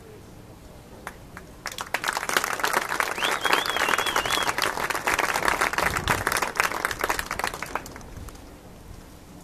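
Audience applauding, starting about two seconds in and dying away near the end, with a warbling whistle of cheering from the crowd partway through.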